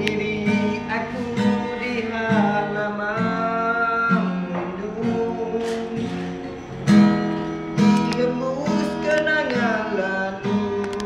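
Two acoustic guitars strummed together in a steady rhythm of chords. A voice sings a melody over them in two phrases, one early and one in the second half.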